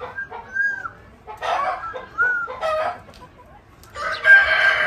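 Chickens calling in short clucks, then a longer, louder rooster crow starting about four seconds in that drops in pitch as it ends.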